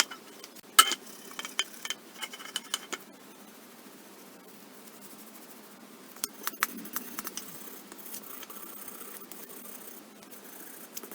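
Scattered sharp clicks and light clinks of small hard parts and tools being handled, the loudest about a second in, with further groups a couple of seconds in and again around six to seven seconds.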